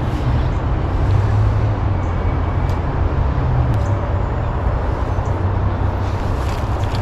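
Steady low rumble with an even hiss of outdoor background noise, with no clear single event.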